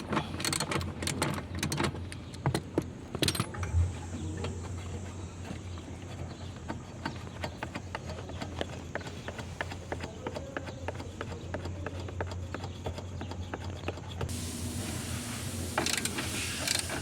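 Metal hand tools clinking and tapping while a spanner works on nuts, with a dense run of quick clicks in the first few seconds and scattered ticks after, over a steady low hum.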